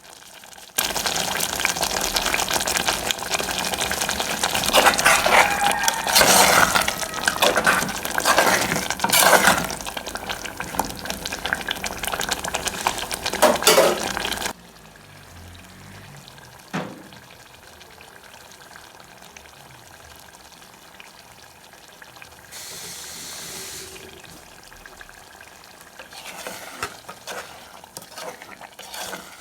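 Food frying in a pan, with a loud, dense crackling sizzle and stirring. About fourteen seconds in it drops abruptly to a much quieter low sizzle, with a single click, a brief hiss and a few light clatters later.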